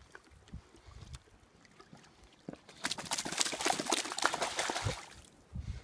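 A Saint Bernard standing in a water trough shakes the water off its head and coat. Droplets spray and patter onto the water and the concrete for about two seconds, starting about three seconds in.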